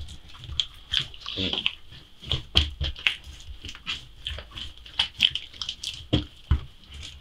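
Hands kneading soft yeast dough on a wooden table: irregular thumps and pressing sounds as the dough is pushed, folded and turned.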